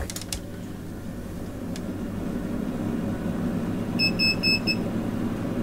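Steady low electrical hum from powered bench electronics, with a few light clicks near the start. About four seconds in comes a quick series of about four short, high electronic beeps.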